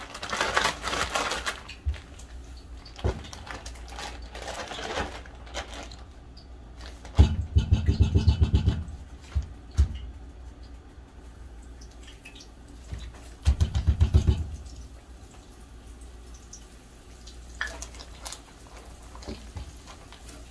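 Chicken pieces being shaken in a plastic bag of flour: plastic crinkling at the start, then two bursts of rapid rustling thumps, about 7 seconds in and again about 13 seconds in, over a steady low hum.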